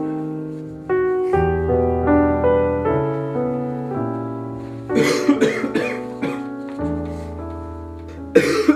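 Piano music, with a person coughing in a quick run of coughs from about halfway through and one more hard cough near the end.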